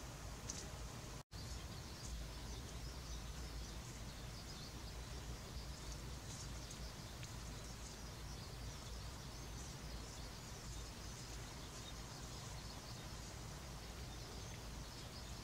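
Faint outdoor ambience: a steady low rumble and hiss with scattered faint, high-pitched chirping from small distant creatures. The sound cuts out for an instant about a second in.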